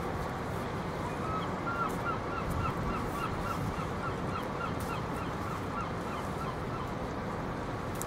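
A bird calling a quick run of short, evenly spaced notes, about four a second, for some five seconds starting about a second in, falling slightly in pitch as it goes. Under it is a steady low rumble.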